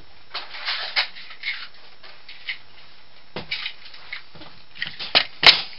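Small metal hardware parts being handled and sorted by hand: scattered clicks, light rattles and rustling, with one sharp click about five and a half seconds in.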